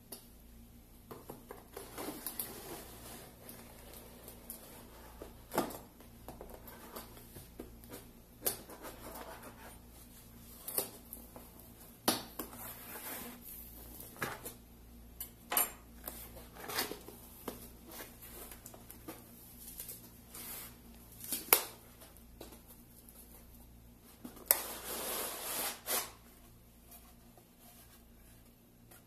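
Hands handling and opening a cardboard shipping box: scattered sharp knocks and clicks of cardboard with stretches of rustling and scraping, including a longer scrape about 25 seconds in. Near the end the box's outer cardboard sleeve is slid off.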